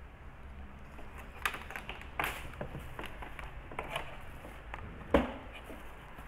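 Irregular small clicks and taps from an Ethernet cable and its plastic RJ45 plug and boot cover being handled. The sharpest click comes about five seconds in, over a faint steady hum.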